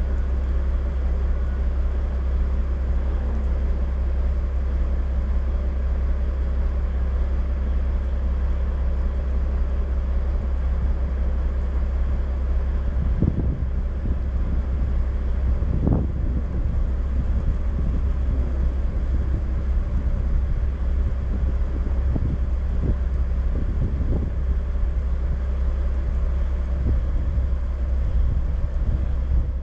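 A log truck's diesel engine idling with a steady low rumble. A few short knocks come partway through.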